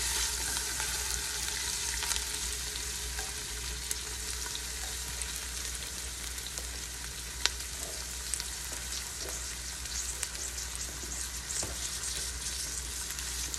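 Sliced onions sizzling in hot oil in a stainless steel pot: a steady frying hiss with scattered small pops.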